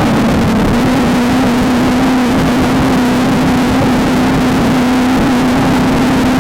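Off-road desert race car's engine running hard at steady revs over a dense low rumble, heard from on board.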